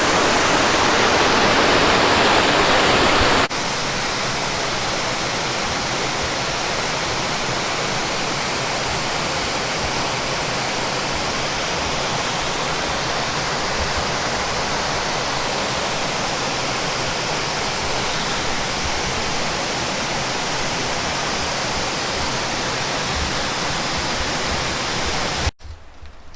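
Waterfall rushing: a steady, even wash of falling water. It drops a little in level at a sudden cut about three and a half seconds in, and near the end it cuts off abruptly to a much quieter background.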